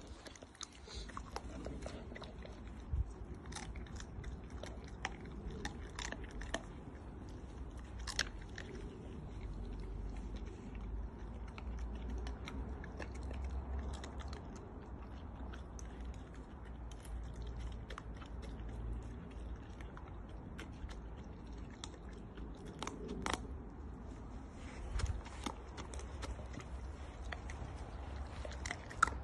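Bull terrier chewing and tearing at a whole raw chicken: irregular wet crunches and clicks, a few louder than the rest.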